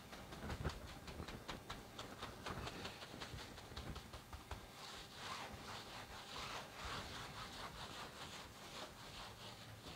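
Plastic bag rubbed and pressed over wet wool fibres under mosquito netting during wet felting: a faint crinkling, swishing rub with many small clicks, swelling a little in the middle.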